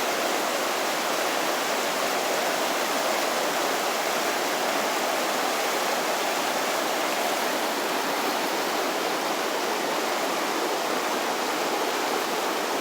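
Steady rushing of a flood-swollen river, fast, turbulent water flowing hard after heavy rain.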